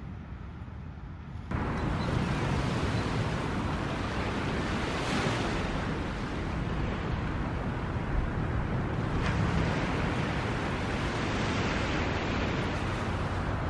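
Sea surf rushing onto a beach, swelling and easing as waves break, with wind rumbling on the microphone. It comes in abruptly about a second and a half in.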